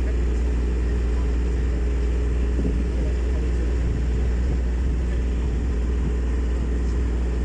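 Sightseeing canal boat's engine running steadily with a low drone.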